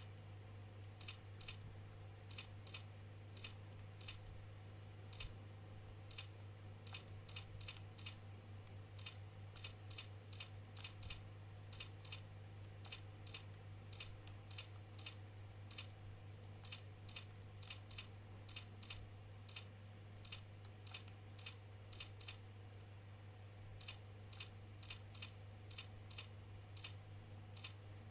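Computer keyboard keys struck one at a time in slow, unevenly spaced typing, about one to two clicks a second, over a faint steady low hum.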